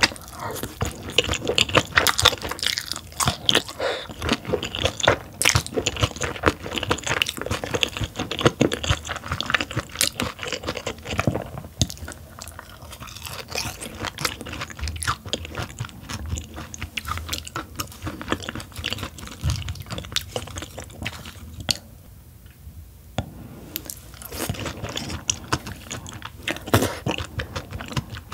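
Close-miked chewing of steamed yellow stingray: many quick, crackly mouth sounds that ease off briefly about three-quarters of the way through.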